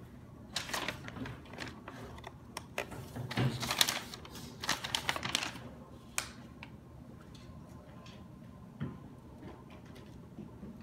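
Paper instruction leaflet being unfolded and handled, crinkling and rustling in bursts for the first six seconds or so, then only a few faint rustles and a soft knock.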